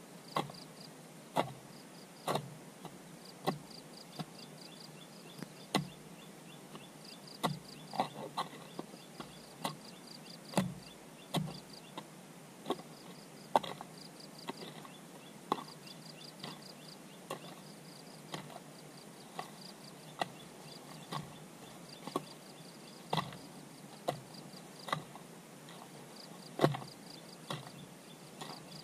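Hand tool striking again and again, one sharp knock every second or two at an uneven pace, with insects chirping steadily in rapid pulses behind.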